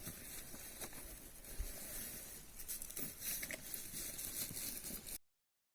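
Rustling and crackling with scattered clicks, cutting off abruptly about five seconds in.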